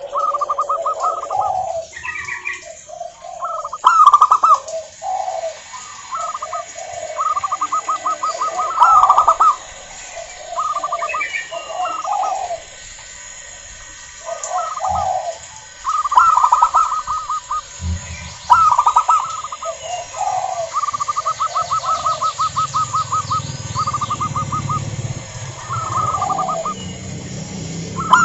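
Zebra doves (perkutut) cooing in quick, stuttering trilled phrases, one after another, with calls at two pitches overlapping as birds answer each other. A low hum comes in about two-thirds of the way through.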